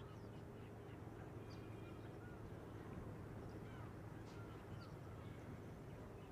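Faint outdoor ambience of many small birds chirping and calling, scattered short calls throughout, over a low steady hum.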